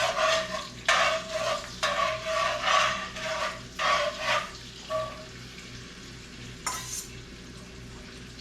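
Carrots and celery sautéing in melted butter in a cast iron pot, sizzling while a utensil stirs and scrapes through them in about six strokes over the first five seconds, then one short scrape near seven seconds. The vegetables are being cooked until softened.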